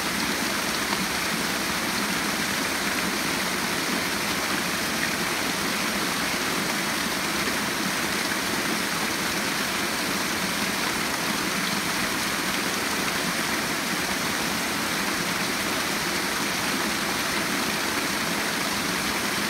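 Fast-flowing rainforest creek rushing and splashing over rocks, a steady, even rush of water.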